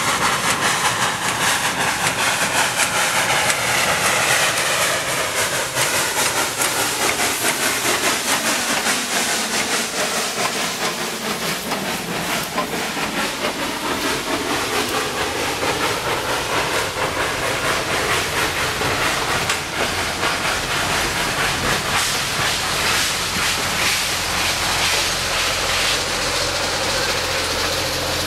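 Steam locomotive (Southern Railway 2-8-0 #154) passing close under steam, its exhaust and steam loud. It is followed by a train of freight cars and passenger coaches rolling by, their wheels clicking over the rail joints.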